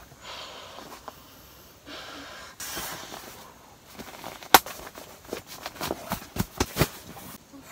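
Camping gear being handled while the tent is pitched: fabric rustling, then a sharp click about halfway through and a quick run of about eight knocks over two seconds, coming faster toward the end.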